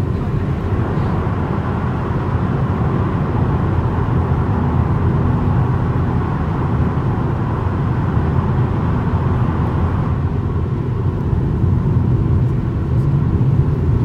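Steady road and tyre noise of a car at expressway speed, heard inside the cabin while driving through a tunnel. A higher hiss in the noise fades about ten seconds in, as the car comes out of the tunnel.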